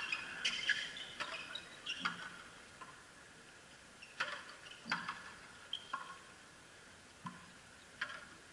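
Frontenis rally: sharp cracks of the rubber ball striking rackets and the fronton wall, irregularly about once a second, with a few short squeaks between them.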